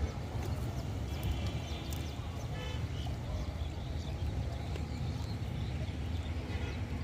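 A steady low rumble of a running motor, with faint short high chirps about a second in and again at two and a half seconds.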